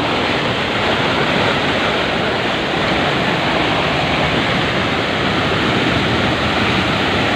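Swollen waterfall in flood, its muddy water rushing and churning in a loud, steady wash of noise.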